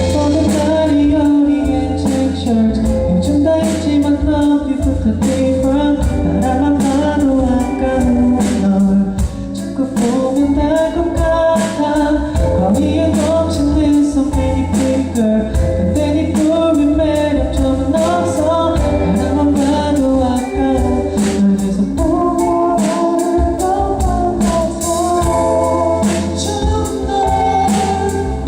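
Male singer performing a song live, his voice over band accompaniment with bass and a steady drum beat.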